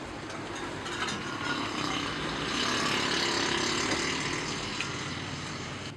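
A motor vehicle's engine running, growing louder to a peak mid-way and then fading.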